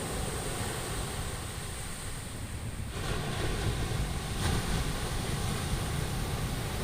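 Ocean surf washing onto a beach, with wind rumbling on the microphone; the surge swells about three seconds in and again a second or so later.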